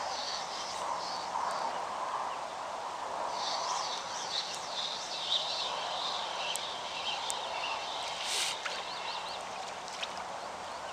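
Several songbirds singing and chirping over a steady background hiss, the calls thickest in the middle. A few short clicks come near the end.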